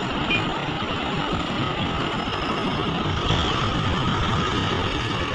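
Diesel engines of heavy hydraulic excavators running steadily under working load while they dig and load ore.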